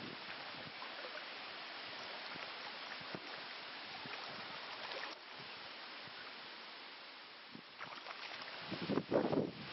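Shallow stream running over a gravel riffle, a steady rushing hiss with scattered small ticks. Louder, uneven rustling bursts come in about nine seconds in.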